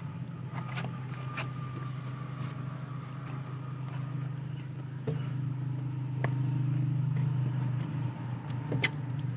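A steady low motor hum, a little louder from about five seconds in, with scattered small clicks and knocks.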